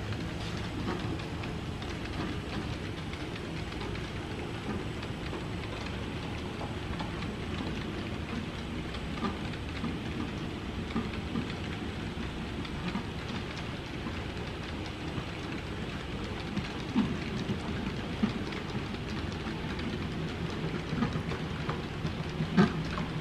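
A model train's cars rolling along the track past the microphone, a steady rolling rush of small wheels on rails. A few sharper clicks in the second half, typical of wheels crossing rail joints.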